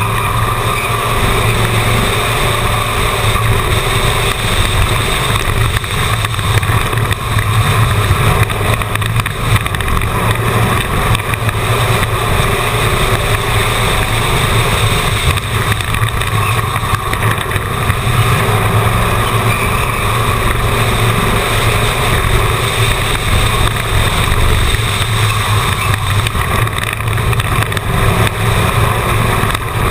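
A stock car's engine running hard under racing load, heard loud and steady from a camera mounted on the car.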